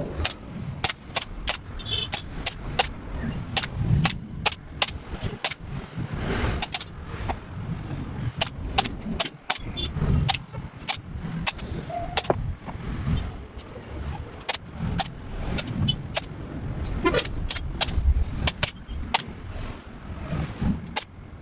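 Irregular sharp clicks or snaps, about one or two a second, over an uneven low rumble.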